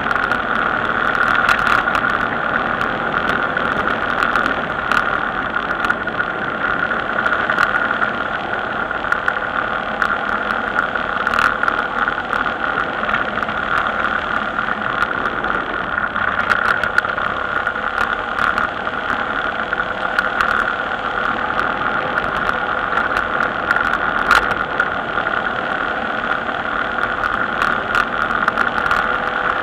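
Steady, muffled running noise of a vehicle travelling along a paved road, with scattered short clicks and knocks throughout.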